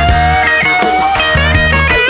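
Blues-rock band playing an instrumental break: an electric guitar lead over bass and drums, with one long note bent slowly upward in the first half.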